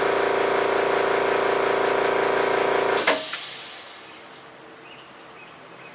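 Shop vacuum motor running with a loud rushing airflow and a steady whine, switched off about three seconds in and winding down over the next second or so as it clears sawdust.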